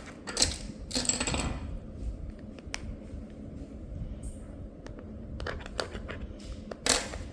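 Hard plastic packaging being handled and pried at: scattered clicks and taps, with short scraping bursts about a second in and again near the end.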